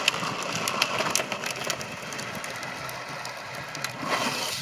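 Child's Radio Flyer drift trike sliding on asphalt, its small rear wheels skidding and scraping with a gritty, crackly rolling noise.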